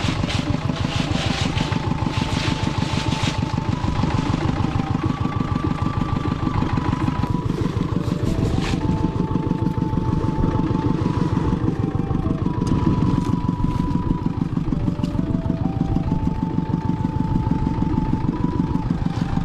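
A small fishing boat's engine running steadily with a fast, even low chugging. A simple melody of held tones stepping up and down plays over it.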